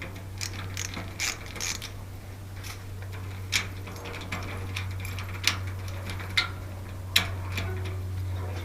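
Steady low hum of a small motor with sharp mechanical clicks scattered irregularly through it.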